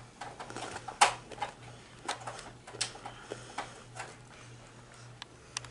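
Scattered light clicks and knocks, the loudest about a second in, from handling cables and equipment at a TV stand, over a faint low hum.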